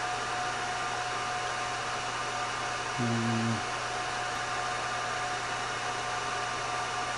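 IBM server's cooling fans running steadily, a broad whoosh with a thin high whine over it. About three seconds in, a short low hum-like tone sounds for just over half a second.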